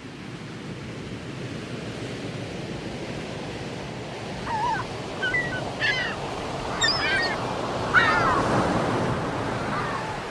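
Sea waves washing onto a rocky shore, a steady rush, with a few short bird calls in the middle of it.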